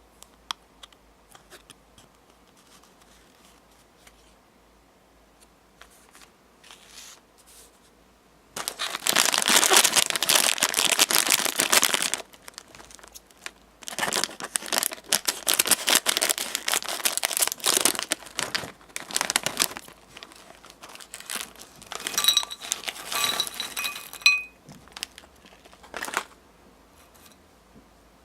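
Plastic snack packaging crinkling as it is handled, in loud spells of a few seconds with faint clicks and taps between.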